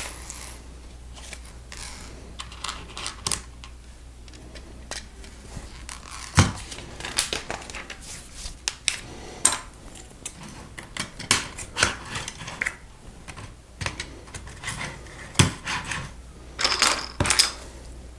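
Plastic LEGO pieces clicking and clattering as they are handled and pressed together, in many irregular sharp clicks, with a few louder ones.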